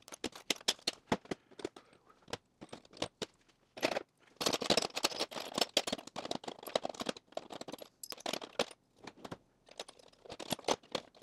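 Small metal tools and parts clinking and rattling as they are set by hand into the plastic compartments of a 3D-printed toolbox-drawer organizer, a quick run of clicks that is busiest in the middle.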